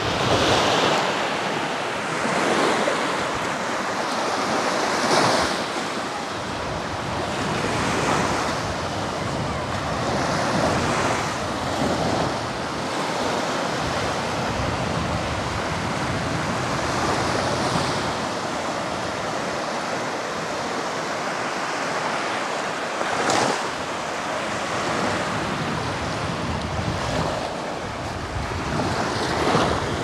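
Black Sea surf washing onto the beach, one swell of wave noise every few seconds, with wind buffeting the microphone.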